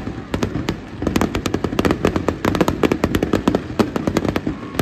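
Aerial fireworks bursting in a rapid, uneven barrage of sharp bangs and crackles, many each second, thickest from about a second in.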